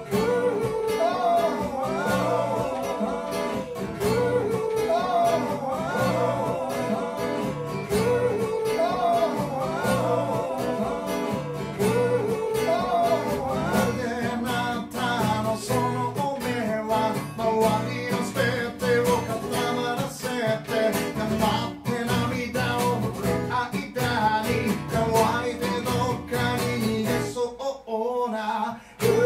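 Live acoustic guitar played with a man's voice singing along, in repeating melodic phrases about every two seconds; the music drops out briefly near the end and then picks up again.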